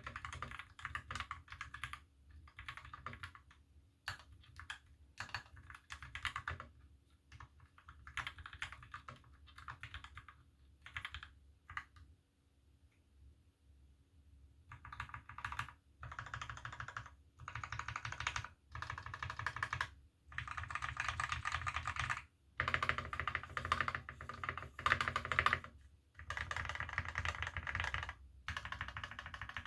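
KBD75v2 mechanical keyboard with Krytox-lubed milky Gateron Yellow linear switches on a brass plate, fitted with GMK keycaps, being typed on in bursts. The typing stops for about three seconds near the middle, then comes back faster and denser.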